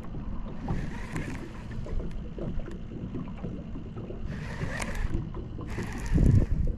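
Wind buffeting the microphone over water lapping against a small boat, with a few brief hissing swells and a heavier low rush of wind near the end.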